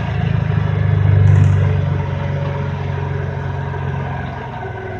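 Kawasaki Teryx S LE side-by-side's engine running under way, its note swelling to a peak about a second in, then easing off gradually.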